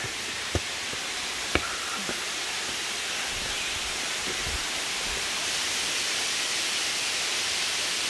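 Waterfall: a steady hiss of falling water that grows a little louder. Two brief knocks sound in the first couple of seconds.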